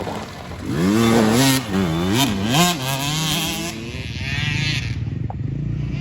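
Dirt bike engines revving, their pitch rising and falling as the throttle is worked, settling after about four seconds into a steadier buzz.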